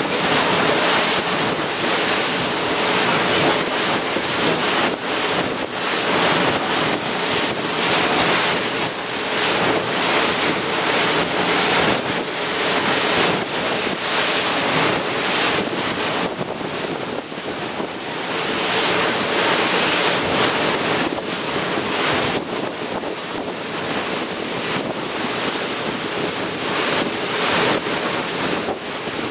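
Motorboat underway at speed: wind buffeting the microphone and water rushing and spraying off the hull and wake, loud and gusty, with a faint steady engine hum underneath.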